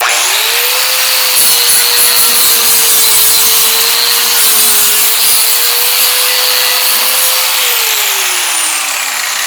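Angle grinder spinning up and grinding a piece of 16-gauge scrap steel, loud and steady. It is switched off near the end and winds down with a falling whine.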